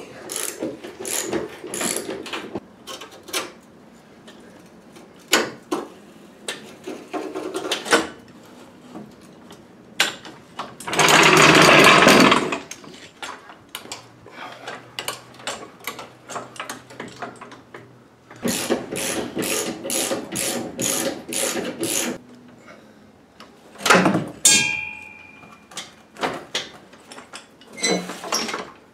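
Hand tools and metal parts being worked on under a car while its rusty exhaust hanger bolts are undone and the exhaust is lowered: scattered ratchet and spanner clicks and metal knocks. About eleven seconds in there is a loud scraping burst lasting about a second and a half. Later comes a run of quick even clicks, about four a second, and near the end a few sharp clanks, one of them ringing briefly.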